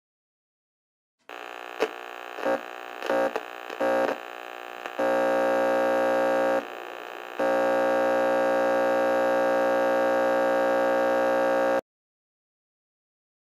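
Radio being tuned: a steady buzzing hum full of overtones, broken by a few short crackles as the dial moves in the first few seconds. About halfway a brief burst of static comes in, then the hum settles and holds steady before cutting off suddenly.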